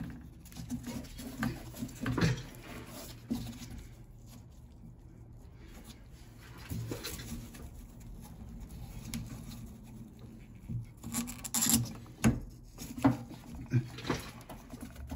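Scattered clicks, knocks and rubbing as a gloved hand squeezes and works the plastic quick-release connector off a car's inline fuel filter pipe, the loudest clicks about eleven to twelve seconds in as the connector lets go. Near the end fuel starts dripping from the freed joint.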